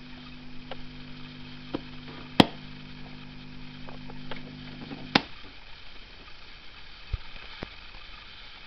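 Fialka-2 radio with its built-in reel-to-reel tape deck humming steadily while its controls are worked by hand, with sharp mechanical clicks. The loudest click comes about two and a half seconds in, and another a little after five seconds, when the hum cuts off as the deck is switched off. A couple of faint knocks follow.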